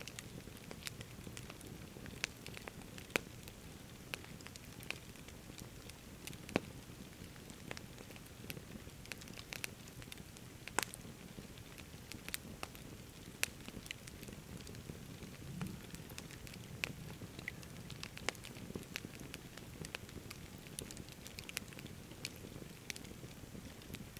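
Wood campfire crackling, with irregular sharp pops and snaps scattered throughout over a steady low background hiss.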